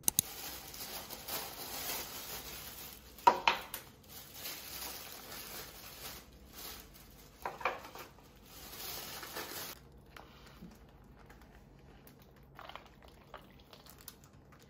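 Plastic takeaway bags and food packaging rustling and crinkling as a takeaway meal is unpacked and tipped into a paper bowl, with two sharper crinkles about three and a half and seven and a half seconds in. The handling goes much quieter for the last few seconds.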